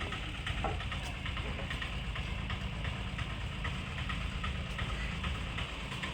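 A boat engine idling steadily with a low, even sound.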